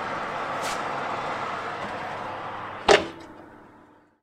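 Fan oven's convection fan running steadily, with a light click about half a second in and the oven door shutting with a thump about three seconds in; the fan sound then fades away.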